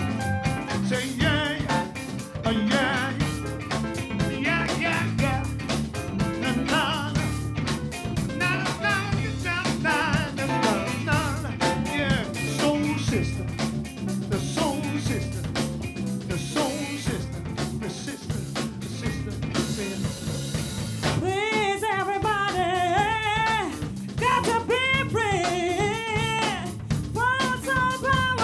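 Live R&B band playing a funk groove, with the drum kit prominent over bass, guitar and keyboard. About two-thirds of the way in, a woman's voice comes in singing bending, melismatic phrases over the groove.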